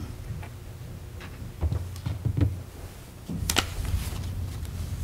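Footsteps and shuffling of several people walking, with scattered knocks and one sharper knock about three and a half seconds in, over a low steady hum.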